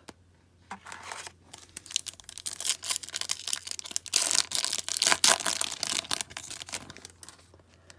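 A trading-card pack wrapper being torn open and crinkled by hand: a crackly rustling that builds and is loudest a little past the middle, then dies away near the end.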